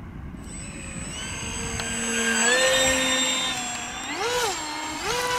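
Motor and propeller of a radio-controlled motor glider whining as it makes a low pass, growing louder toward the middle, with a brief rise and fall in pitch about four seconds in.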